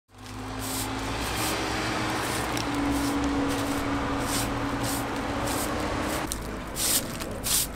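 A steady rushing hiss with a low drone under it, giving way about six seconds in to a straw broom sweeping concrete in separate brisk strokes.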